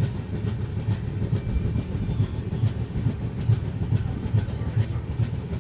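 Passenger train running, heard from its open doorway: a steady low rumble of wheels on rail with a rough, repeating knock a few times a second.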